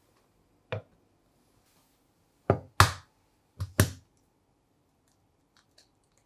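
Sharp knocks and clinks of glass mixing bowls and an egg being handled on a kitchen counter: one knock about a second in, then two quick pairs of louder knocks around the middle, and a few faint ticks near the end.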